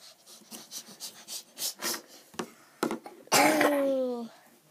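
Light taps and crackles of small toys being handled, then about three seconds in a child's voice makes one loud, drawn-out, slightly falling wordless sound, about a second long.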